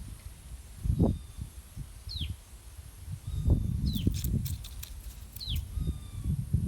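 Strong wind buffeting the microphone in gusts, with a bird's short falling call repeating about every second and a half. A quick patch of faint clicks comes about two-thirds of the way through.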